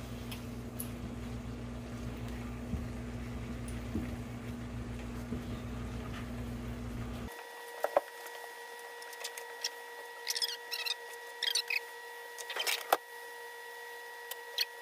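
A steady low hum for about seven seconds that cuts off abruptly. It is followed by a faint steady whine with scattered light clicks and taps.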